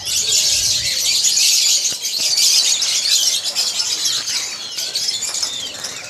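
Many caged songbirds chirping and twittering at once: a dense, continuous chorus of high chirps.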